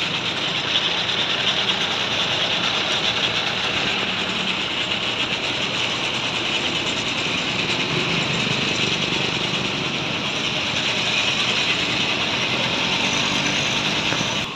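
Tow truck's engine running steadily close at hand while its wheel-lift is worked under the car.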